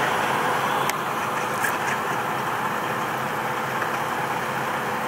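Semi truck's diesel engine idling steadily.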